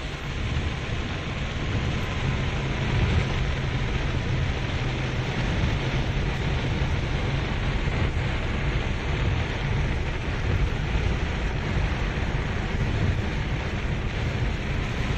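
Heavy rain with the steady low rumble of a vehicle driving on a wet road, a continuous noise that doesn't let up.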